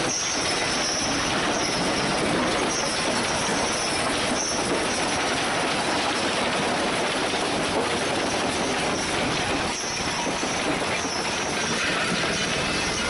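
Gipokombi RC 130 FDR mobile crusher running under load: concrete rubble clatters and rattles steadily across its vibrating steel feeder grate and into the crusher, with a continuous metallic grinding din.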